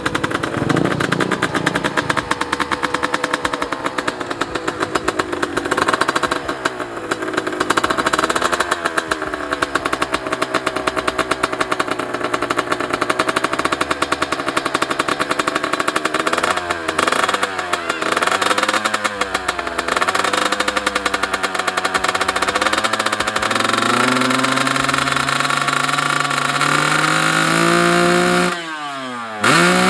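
Kawasaki Ninja grasstrack motorcycle's tuned engine being revved by hand, its pitch swinging up and down in repeated throttle blips. Over the last few seconds the revs climb steadily, then fall away sharply just before the end.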